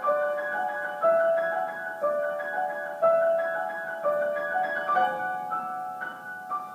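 Solo piano playing a classical-style piece in the middle and upper register, with an accented note or chord struck about once a second over quicker repeated notes.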